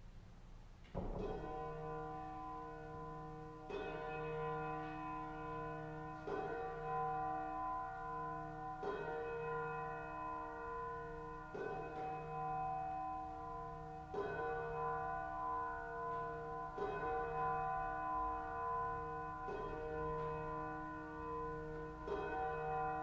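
A bell tolling slowly, one stroke about every two and a half seconds, each stroke ringing on under the next. The first stroke comes about a second in.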